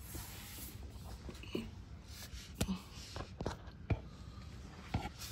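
Faint rustling and a handful of light clicks and taps: handling noise from a phone being moved around while looking under a car.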